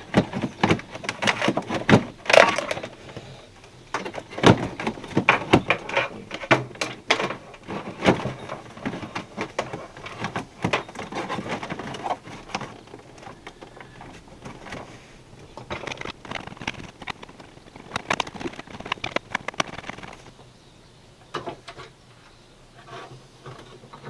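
Hands working a plastic dash control panel: a dense run of clicks, knocks and rustles, thinning to a few faint taps over the last few seconds.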